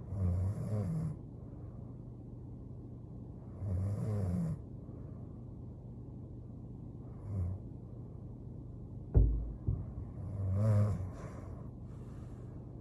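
A young woman snoring in her sleep, one snore every three and a half seconds or so. A single dull thump comes about nine seconds in.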